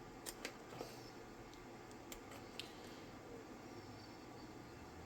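A few faint, sharp clicks of small plastic plugs and cords being handled, over a low steady room background.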